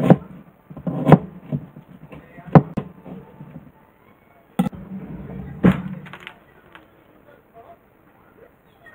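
Kitchen utensils being handled on a wooden cutting board and stainless steel counter: about five sharp knocks and clacks over the first six seconds, then quieter handling.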